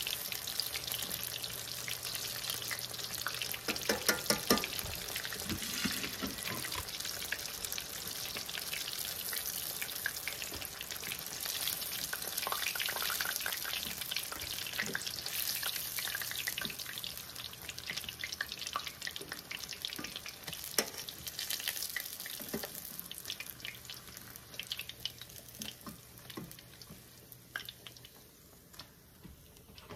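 Battered chicken strips sizzling and crackling in hot oil during their second fry, the double fry that makes them crispy, with sharp pops and clicks throughout. The sizzle dies down over the last few seconds as the pieces are lifted out of the pan.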